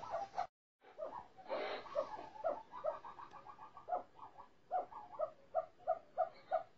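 Caged snowcocks calling: a steady string of repeated clucking notes, about four a second, with a quicker run of higher notes partway through. The calling drops out briefly about half a second in.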